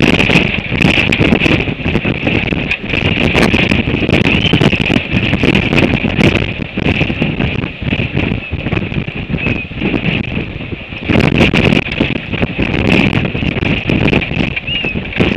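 Gale-force wind buffeting the microphone in gusts, surging and easing every second or so with scattered knocks, over a steady high-pitched whistle.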